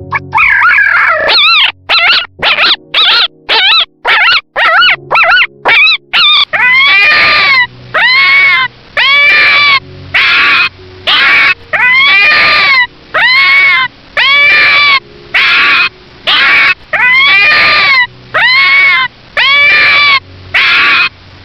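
A puppy yelping and whimpering over and over in high-pitched cries, short and quick at first, then longer cries that rise and fall, about one a second.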